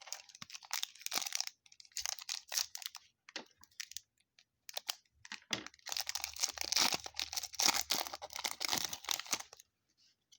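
A trading-card pack wrapper being torn open and crinkled by hand, in uneven bursts of crackle, with a longer stretch of crinkling in the second half that stops shortly before the end.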